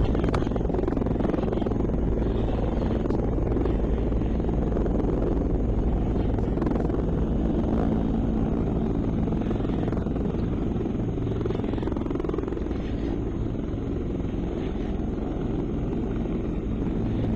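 Steady low wind rumble buffeting the camera's microphone over open water.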